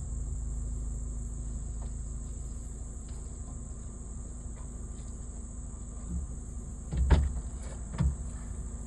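Steady outdoor ambience: a low rumble with a thin, steady high insect drone like crickets, broken by a few short knocks, the loudest about seven seconds in and another about a second later.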